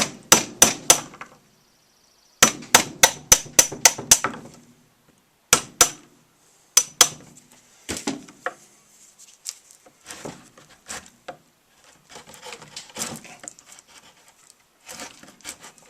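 Chisel being struck to cut into juniper wood: quick runs of sharp, ringing strikes, first about four, then about eight, then a few more. After that come lighter, scattered taps and scraping.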